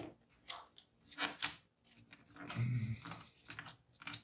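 Scattered light clicks and short rustles of hands handling the parts of an opened laptop.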